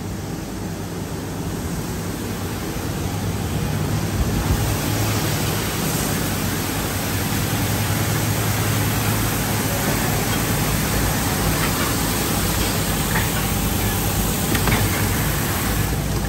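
Conveyor car wash tunnel in operation: a steady hiss of water spray and cloth wash equipment working over a car, above a low hum of the machinery's motors. The noise builds over the first few seconds and then holds steady.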